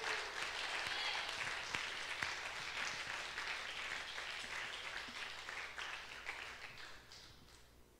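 Church congregation applauding in response to the sermon, the clapping fading away near the end.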